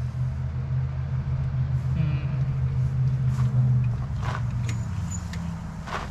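Electric fuel pump of a 1963 Corvair running with the ignition on and the engine not started: a steady low hum, with a few light clicks about halfway through and near the end.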